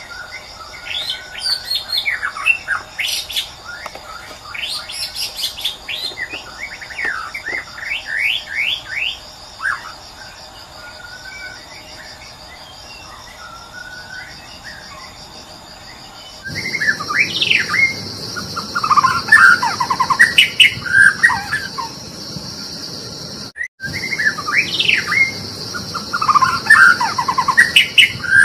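White-rumped shama singing: varied whistled phrases and rapid trills in repeated bursts over a steady high insect buzz. About halfway through the recording changes abruptly to louder, denser song with more background noise, and there is a brief dropout shortly after.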